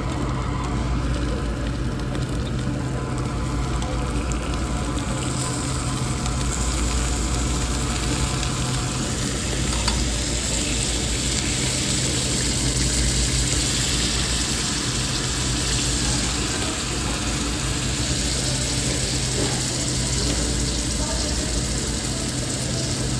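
Food sizzling on a tabletop Korean barbecue grill, a steady hiss that grows louder about five seconds in, over a constant low hum.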